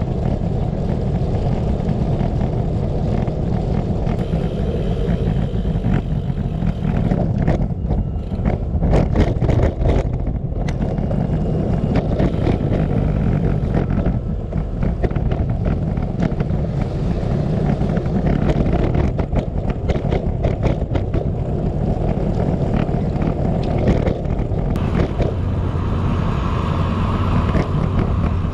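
Wind buffeting the microphone of a camera riding on a moving bicycle, a steady low rumble that swells and dips. A run of sharp clicks and knocks comes about eight to ten seconds in.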